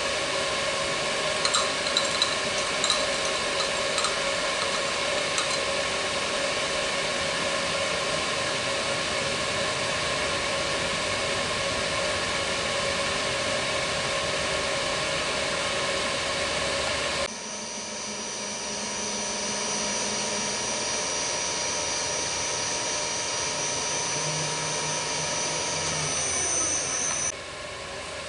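Milling machine running steadily, a mechanical hum with several steady tones, with a few light clicks in the first few seconds. About two-thirds through, the sound drops abruptly and changes character, and it shifts again just before the end.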